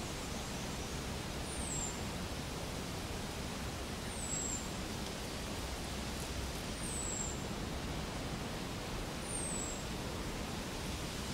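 Steady outdoor hiss. A short, thin, high whistle that slides down in pitch repeats four times, about every two and a half seconds.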